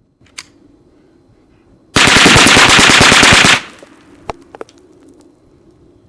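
A .22 semi-automatic rifle fired in a very fast string of shots lasting about a second and a half, the reports running close together. A few isolated sharp clicks come before and after the string.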